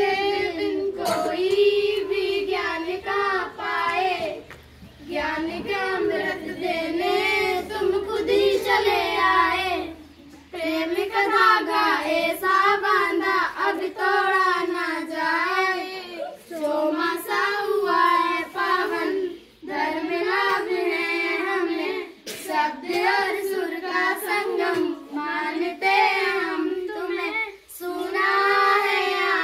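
Schoolgirls singing a Hindi welcome song (swagat geet) together, unaccompanied, in phrases with short breaks for breath between them.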